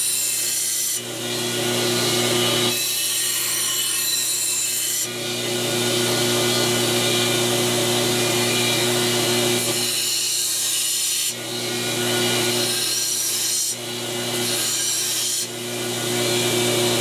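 Belt grinder running with a steady motor hum while a steel knife blade is held against the abrasive belt to sharpen its edge. The grinding hiss changes every few seconds as the blade is lifted and passed again.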